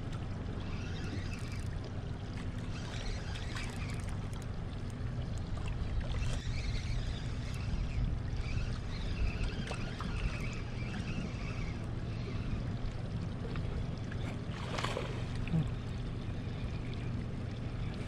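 Fast-flowing river water with a steady low hum. A short louder knock or splash comes about fifteen seconds in.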